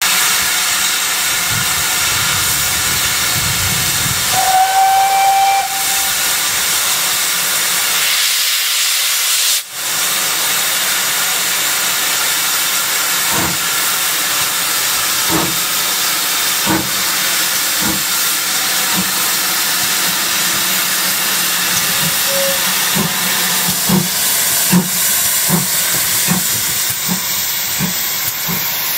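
GWR Manor class 4-6-0 steam locomotive No. 7820 Dinmore Manor hissing loudly, with steam venting from its cylinder drain cocks, and a short whistle tone about four seconds in. From about halfway its exhaust beats start, slow at first and quickening as the engine pulls away.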